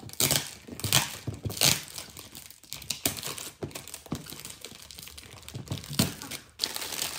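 Clear plastic shrink-wrap being ripped and peeled by hand off a box, crinkling continuously with several loud, sharp tears at irregular moments.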